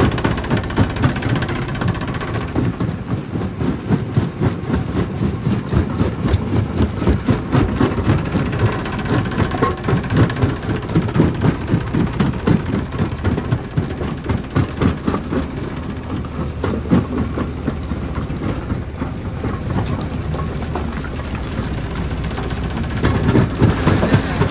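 Jaw crusher running and crushing rock: dense, irregular knocks and cracks over a steady low mechanical drone. The knocking is thickest through the first two-thirds and thins out near the end.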